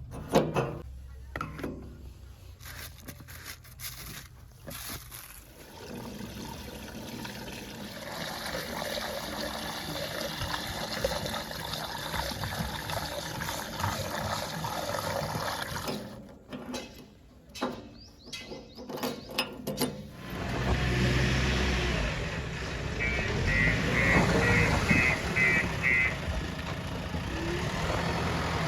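Uneven outdoor noise with scattered knocks, then about two-thirds in a JCB 3DX backhoe loader's diesel engine sets in, running steadily, with a quick run of six short beeps over it.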